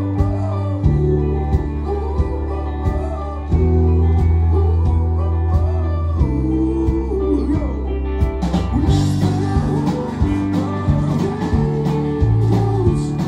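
Live rock band playing: a male lead voice singing over electric guitars, bass, keyboards and drums. The sound gets brighter and fuller about two-thirds of the way in.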